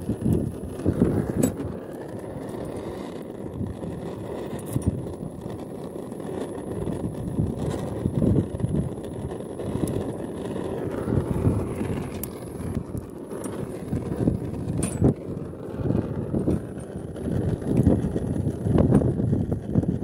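Brazing torch flame burning steadily at a copper pipe joint on an air-conditioner compressor, mixed with wind buffeting the microphone. A few short clicks break through.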